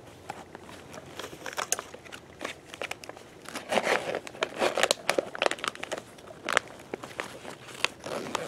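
Crinkling and rustling of a Faraday bag and gear being handled and stuffed back into a backpack side pocket, with scattered light clicks and knocks; the rustling is loudest around the middle.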